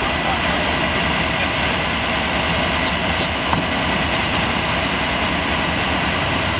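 A vehicle engine idling steadily under a constant hiss.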